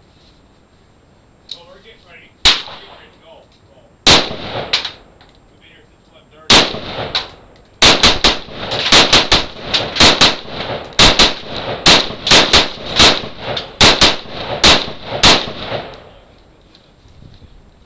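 DPMS Panther Lite 16 AR-15 carbine in .223 firing: a few spaced single shots, then a fast string of about twenty shots at two to three a second, each one echoing under the range's metal roof.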